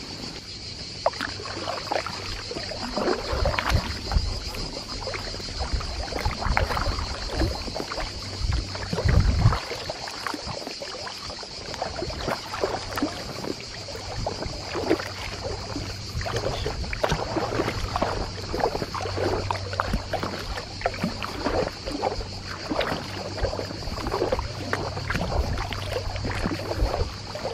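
Double-bladed paddle stroking through lake water beside an inflatable canoe: irregular splashes and drips as the blades dip and lift, over a steady high buzz, with a dull bump about nine seconds in.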